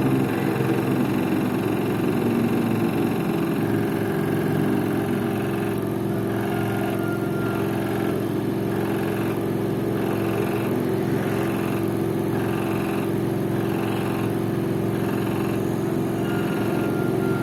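LG FV1450S1B front-loading washing machine running its spin cycle: a steady hum, joined from about five seconds in by a faint knock repeating roughly every two-thirds of a second. The owner likens the odd spin noise to a bolt that is not tight enough.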